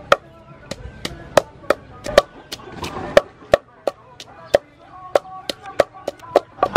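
Wooden pestle pounding green chilies in a wooden mortar: a run of sharp, dull wooden knocks, about three a second.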